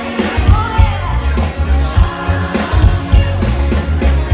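Live pop band playing through a PA: lead and backing vocals over bass guitar, drums and keyboards, with a steady kick-drum beat.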